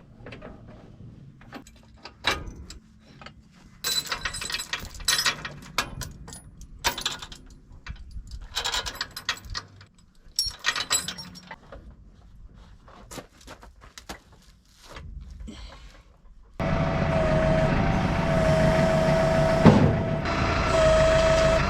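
Scattered clinks and rattles, some in quick runs, then about 16 seconds in a tractor engine comes in loud and runs steadily with a held tone.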